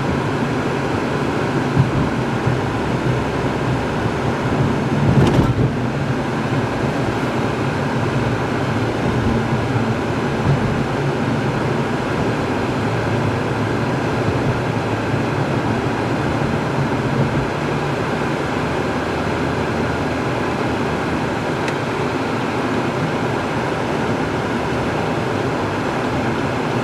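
Steady road noise of a car driving at highway speed, heard from inside the cabin: tyre and engine drone with no breaks. There is one brief louder swell about five seconds in.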